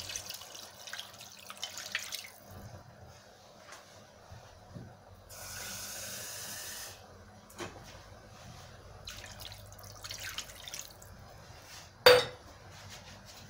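Water poured in a stream into a pan of broth with potatoes and mussels, splashing for about the first two seconds and then stopping. Later comes a steady hiss of about a second and a half, and a sharp knock near the end is the loudest sound.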